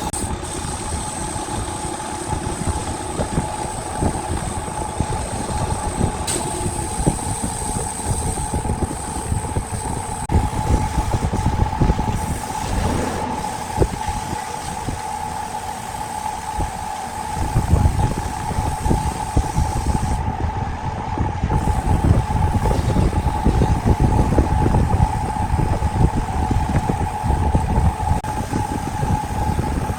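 Wood lathe running: a steady high whine over a rough, uneven rumble and rattle, which grows louder a little past halfway.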